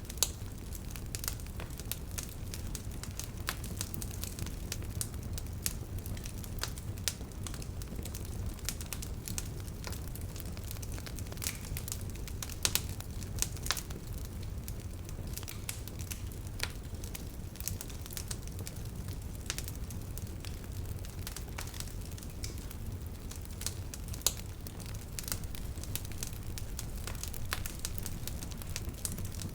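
Wood bonfire crackling, with irregular sharp pops and snaps of burning wood over a steady low rumble of the flames.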